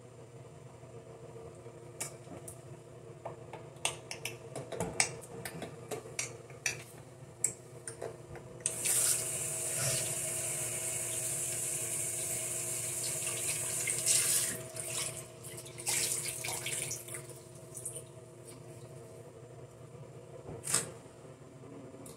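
Water running from a tap for about five seconds in the middle, with small clicks and knocks of things being handled before and after.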